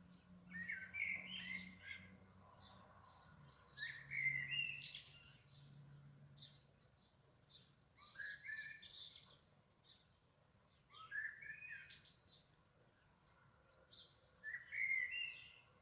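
A songbird singing in short warbled phrases, five of them, one every three to four seconds, with fainter high chirps between.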